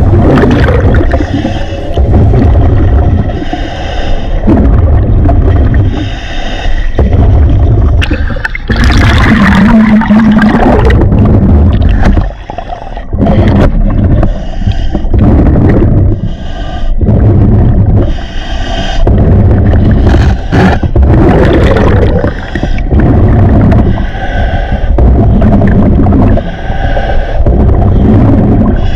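Scuba diver breathing through a regulator underwater: bursts of exhaled bubbles gurgling about every two seconds, over a loud steady rumble of fast river current rushing past the camera.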